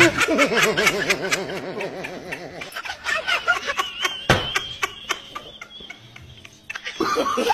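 A person's wavering, laughter-like vocalizing, its pitch shaking rapidly up and down. It gives way to a thin, high, slightly falling tone over a run of quick clicks, with one sharp knock near the middle.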